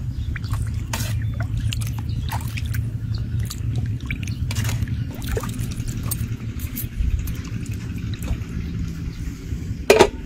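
Small splashes and drips as ingredients are spooned into a pot of water, over a steady low rumble. About ten seconds in, a sharp metal clank as an aluminium pot lid is set on.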